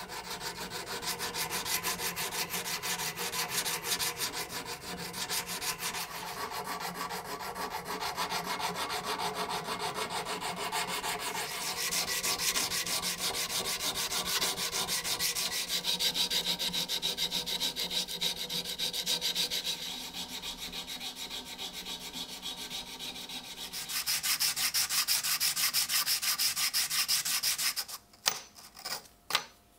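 Sanding by hand, a steady run of quick, even rubbing strokes that grow brighter about halfway through and again a few seconds later, then stop and start a few times near the end.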